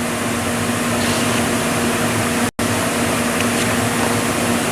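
Steady fan-like rushing noise with a low, even hum, which cuts out for a moment about two and a half seconds in.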